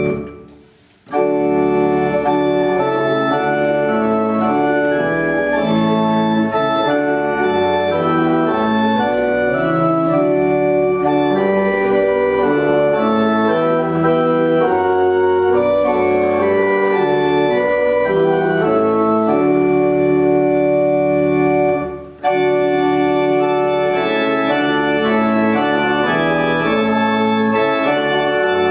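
Organ playing a hymn in sustained full chords. It breaks off for about half a second near the start, between verses, then resumes, with another brief break between phrases at about 22 s.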